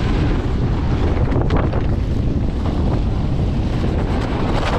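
Wind rushing over the microphone of a camera riding a snow tube down a tubing hill, a steady loud rumble and hiss.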